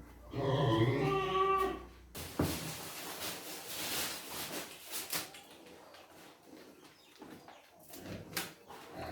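A farm animal gives one long, wavering call of just under two seconds, followed by rustling and scattered light knocks.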